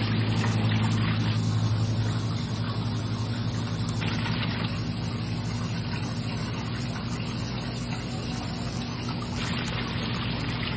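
A steady low motor hum over a light wash of moving water.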